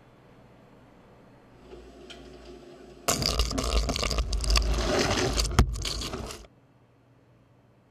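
Water running from a tap into a mop bucket, a loud splashing rush. It starts suddenly about three seconds in and cuts off abruptly some three and a half seconds later.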